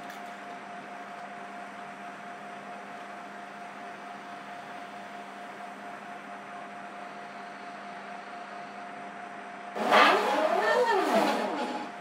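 The humanoid robot's arm motors whine as its arms swing apart near the end, the pitch rising and then falling over about two seconds. Before that there is only a steady faint hum and hiss.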